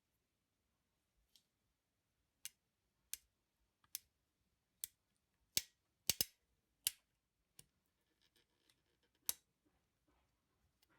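About ten sharp mechanical clicks at uneven intervals, the loudest a quick pair a little past the middle.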